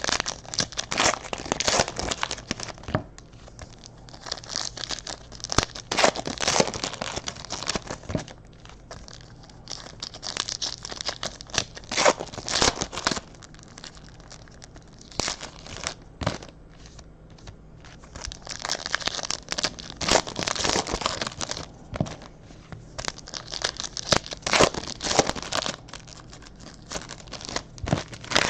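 Trading-card pack wrappers being torn open and crinkled by hand, in irregular bursts of tearing and crackling with short pauses between.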